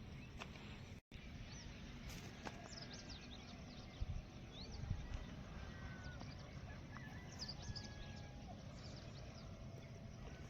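Faint outdoor ambience of small birds chirping, with short high calls scattered throughout over a steady low background noise. A couple of soft knocks come near the middle, and the sound cuts out for an instant about a second in.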